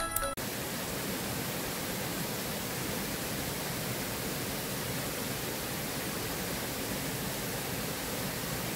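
Steady, even rush of water from a small jungle waterfall spilling over a weir into a pool. A chiming music jingle cuts off abruptly in the first half-second.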